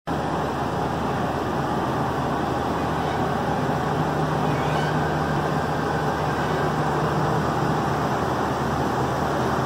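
Class C motorhome's engine idling steadily, an even low hum with a hiss above it.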